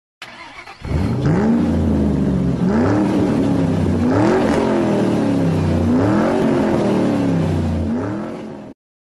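Car engine revving repeatedly, about five revs roughly a second and a half apart, each rising in pitch then dropping back; it starts quietly, comes in loud about a second in, and cuts off shortly before the end.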